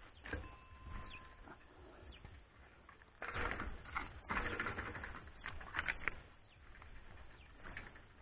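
Scuffing and rustling of someone pushing a bicycle up a dry dirt forest trail, in uneven bursts that are loudest a few seconds in. A bird calls faintly in the background.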